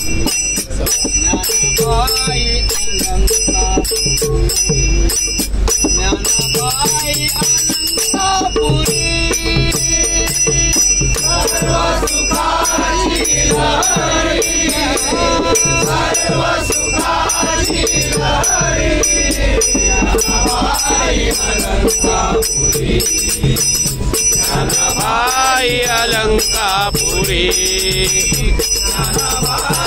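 Men singing a Marathi devotional abhang to the steady rhythmic clash and ring of small brass hand cymbals (taal). A constant low train rumble runs underneath.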